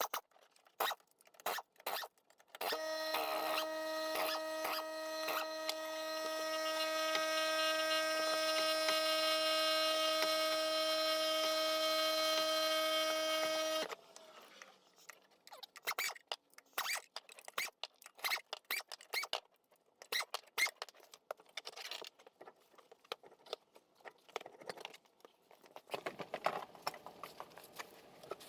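A power tool's motor whines steadily at one pitch for about eleven seconds, spinning on the truck's lug nuts, then cuts off; before and after it come scattered metallic clicks and rattles of the socket and lug nuts being handled.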